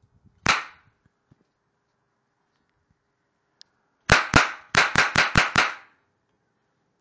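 Toy cap gun firing: one sharp crack, then a few seconds later a rapid string of seven cracks.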